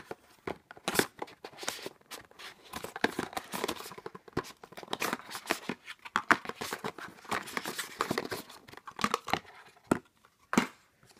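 A small printed cardboard box being opened and handled: a dense, irregular run of tearing, scraping and clicking of card.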